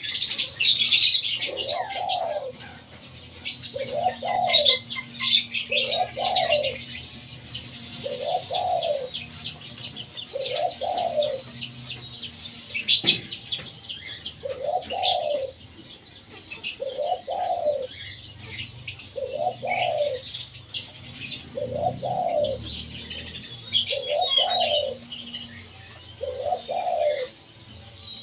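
A dove giving a low, arching coo about every two seconds, over a busy chatter of smaller birds chirping at a higher pitch. A single sharp knock comes about halfway through.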